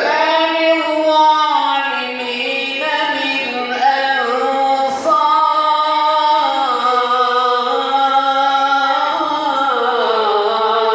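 A hodja's high male voice singing a long, ornamented melismatic line into a microphone, amplified through PA speakers in a large hall. The long held notes step and waver in pitch, with no instrument audible.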